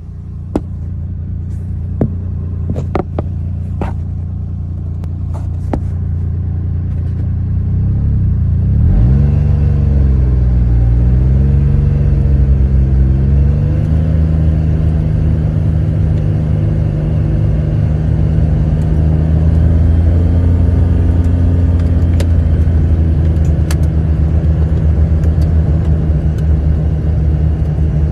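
A motor vehicle engine running, with a few sharp clicks in the first several seconds. About nine seconds in, the engine note rises and wavers for a few seconds, then settles to a steady run.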